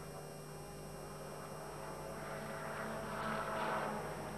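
Volvo 240 Turbo Cup race cars running on the track, their engine sound swelling as a car comes past about three seconds in, over a steady electrical hum.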